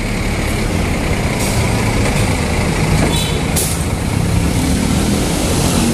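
Scania double-decker coach's diesel engine running steadily as the bus pulls away slowly, with a couple of short hisses of air about one and a half and three and a half seconds in.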